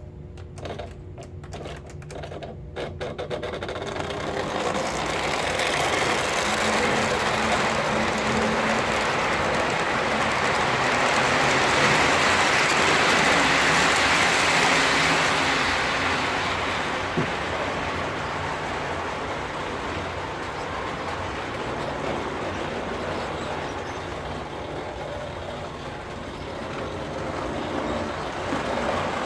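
O gauge model train running on three-rail track close by: a whirring rumble of motor and wheels that swells as it passes, loudest about halfway, then slowly fades. A few light clicks at the start and one sharp click about two thirds of the way through.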